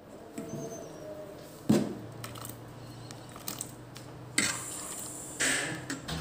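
Stainless steel ladle stirring a pot of thick coconut-milk dessert, knocking and scraping against the metal pot with some liquid sloshing. There are a few sharp clinks and a scraping stretch near the end, over a low steady hum.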